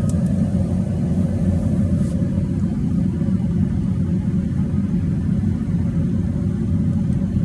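Steady low rumble with a faint, even hum above it.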